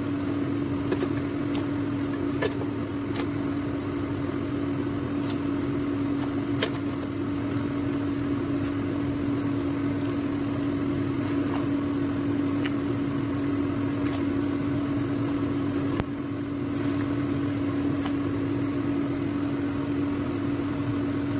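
A steady machine-like hum holding one pitch, with a few faint light clicks scattered through it.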